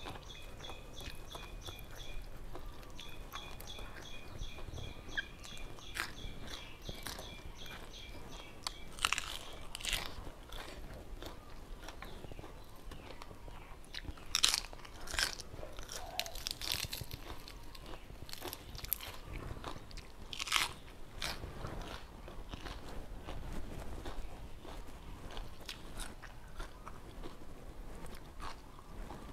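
Close-up eating sounds: crisp lettuce leaves bitten with sharp crunches, the loudest a little past the middle, and chewing in between.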